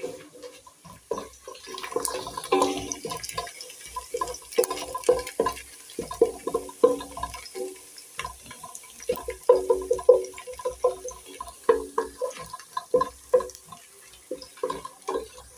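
Red onions frying in hot oil in a sufuria (cooking pot), sizzling with many irregular crackles and pops as they brown.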